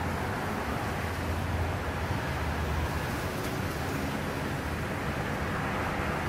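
Strong wind blowing through leafy trees: a steady rushing noise with a low rumble underneath.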